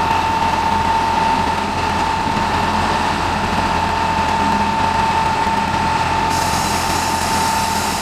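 Self-loading concrete mixer's engine running steadily while the hydraulics swing and tilt the mixer drum, with a steady high whine throughout. A hiss joins near the end.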